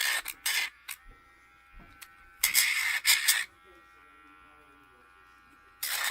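YABIFE electric pet nail grinder running with a faint steady whine, and three loud, harsh bursts of grinding as its spinning wheel is pressed against a dog's nail, filing it down: at the start, in the middle, and near the end.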